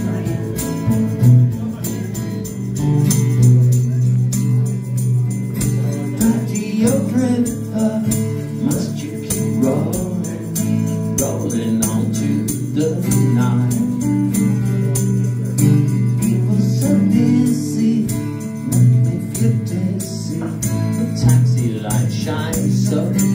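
Live music: a male singer with a strummed guitar, played through a small venue's PA.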